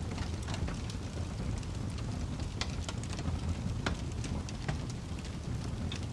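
Wood fire crackling in a fireplace: several sharp pops and snaps scattered over a steady low rumble.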